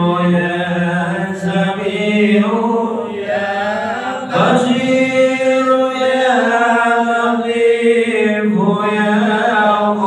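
Voices chanting an Arabic dhikr invoking the names of God, in long drawn-out melodic phrases that hold each note and slide between pitches.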